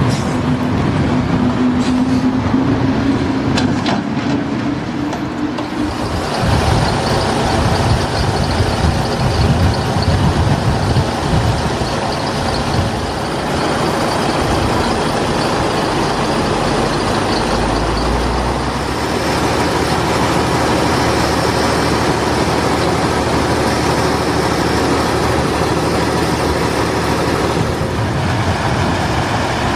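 Diesel engines of old Mercedes-Benz dump trucks running as the trucks drive, a steady loud drone. There is a low steady tone and a few knocks in the first six seconds, and the sound changes at about six seconds in.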